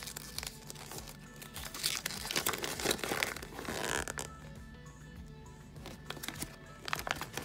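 Folded paper poster being unfolded and handled, crinkling loudest for about two seconds in the middle, with another short crinkle near the end, over quiet background music.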